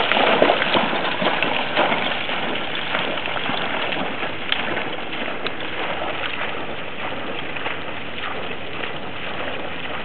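Labrador retriever bounding through shallow flooded marsh water, a rapid run of splashes that is loudest in the first couple of seconds and fades as the dog moves away.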